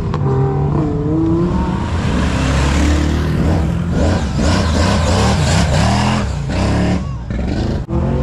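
Performance car engines revving and accelerating away, their pitch rising and falling with each rev, cutting off abruptly near the end.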